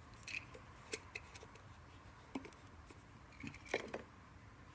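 Faint, scattered clicks and taps of small objects being handled on a workbench, with a short cluster of louder ones near the end.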